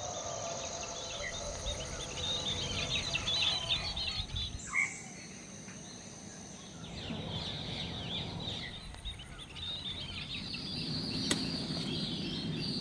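Garden ambience with many small birds chirping in quick, irregular calls and a steady high insect trill. A single sharp click comes near the end.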